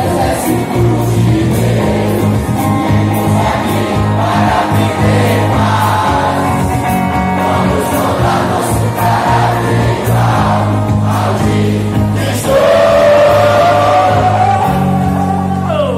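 Large crowd of young people loudly singing a chant in unison. About twelve seconds in they hold one long, slightly rising note, the loudest part, which ends in a falling slide.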